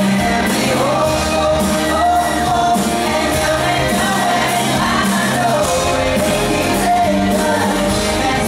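Live band performing through the PA: a young male lead vocalist singing into a microphone over electric guitar, bass and drums with a steady beat, heard from within the audience.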